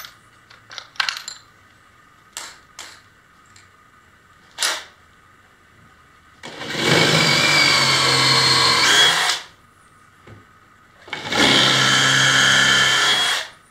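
DeWalt cordless drill running into a wooden frame in two runs of about three seconds each, with a few light knocks before the first.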